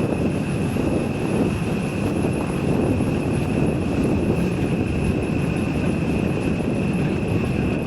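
A 314,000-mile Nissan Pathfinder 4x4 driving off-road: a steady engine and drivetrain rumble with road noise, heard from inside the cabin, with a steady high whine over it.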